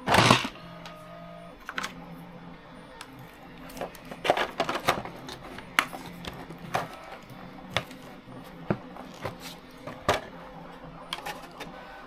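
Irregular clicks and knocks of a LiPo battery pack being worked into a plastic RC-car battery tray, with a loud knock at the start and clusters of rattling about four and ten seconds in.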